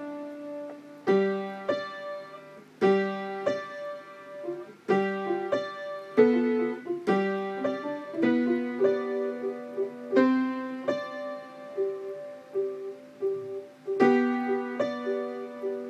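Upright piano played by a child, from a beginner's course book: single notes and chords struck about once a second and left to ring. In the second half, a short note repeats about twice a second over held low notes.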